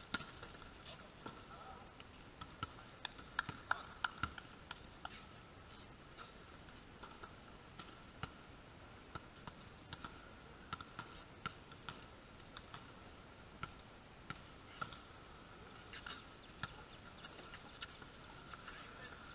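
Volleyball being struck and players' shoes on a concrete court: scattered sharp slaps and taps, with a quick run of louder ones about four seconds in, over a faint steady high tone.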